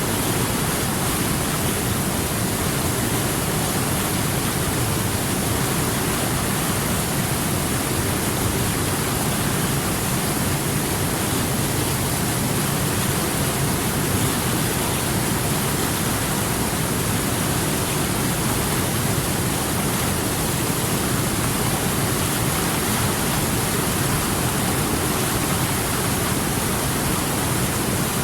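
River water rushing steadily over rocks, an even hiss with no single splashes standing out.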